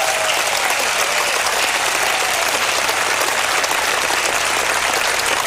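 Seated audience clapping steadily in sustained applause.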